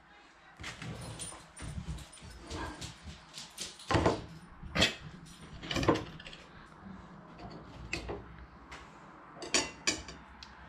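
Plastic snack wrapper being torn open and crinkled: a run of short crackles and rustles, with the loudest about four to six seconds in and another cluster near the end.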